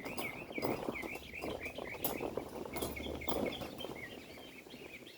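Ducklings peeping in a steady run, about four chirps a second, with wind buffeting and a tarp rustling underneath.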